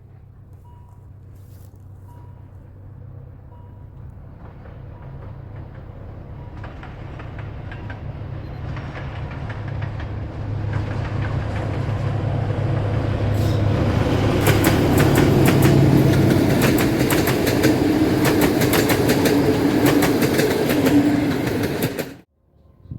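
Train approaching and passing: a low locomotive engine drone grows steadily louder, then the wheels clatter rapidly over the rail joints as the wagons go by, until the sound cuts off suddenly near the end. A faint beep repeats about once a second in the first few seconds.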